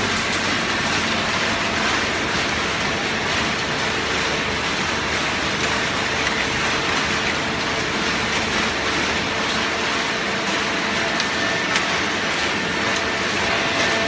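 Hydraulic automatic horizontal cardboard baler and its feed conveyor running: a steady mechanical din with a faint steady hum underneath. A few light clicks come about three-quarters of the way through.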